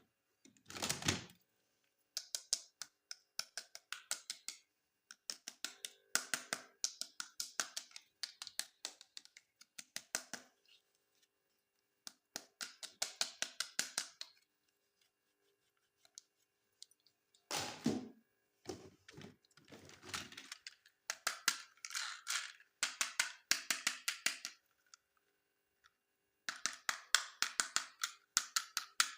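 Rapid runs of small sharp clicks and crackles in bursts of a few seconds with short pauses between, the sound of hands handling toys and their plastic packaging.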